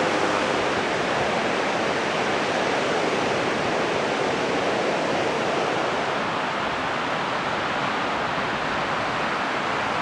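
Ocean surf breaking on a reef and beach: a steady, even rush of white-water noise.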